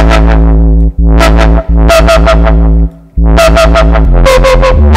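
Vital software synth playing a drum and bass foghorn bass in three held notes with short breaks: a deep bass tone with buzzy upper overtones that wobble several times a second, while the filter cutoff is moved. About four seconds in the note steps down lower.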